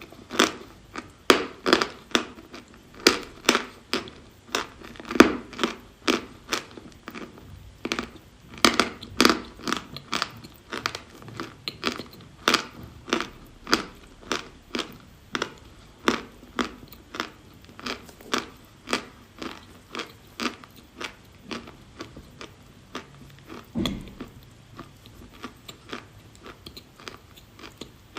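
A person chewing pieces of edible chalk, with crisp crunches about two a second that grow softer toward the end. One duller, deeper knock comes late on.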